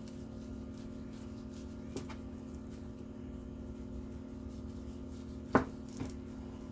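Sharp kitchen knife slicing through a sushi roll and knocking down onto the board: a light tap about two seconds in, then a sharp knock and a softer one near the end, over a steady low hum.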